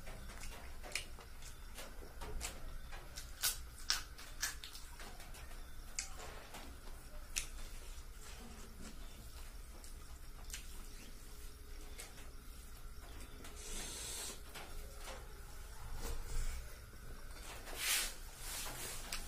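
Close-miked wet eating sounds of rice and fish curry eaten by hand: chewing, lip smacks and sharp mouth clicks scattered throughout, with a couple of longer, noisier wet sounds near the middle and near the end.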